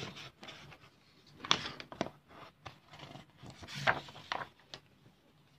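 A sheet of drawing paper being handled, lifted and shifted on a table, rustling and scraping, with two louder rustles about a second and a half and four seconds in.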